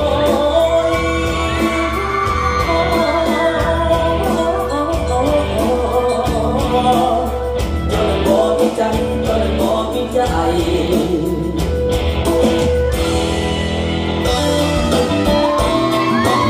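Song with a singer over a steady beat, played through stage loudspeakers as dance music.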